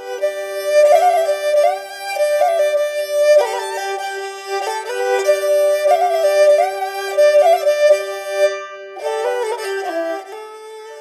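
Instrumental music: an ornamented melody over a steady held drone, with a brief break about eight and a half seconds in.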